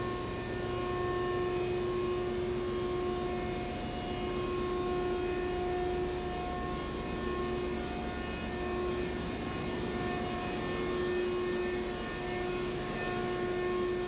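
Steady drone of a ship's engine-room machinery running, with several whining tones held over it that grow and fade in strength.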